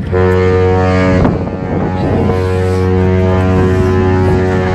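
Cruise ship MS Braemar's horn sounding one long, deep, steady blast as the ship leaves port, with wind on the microphone.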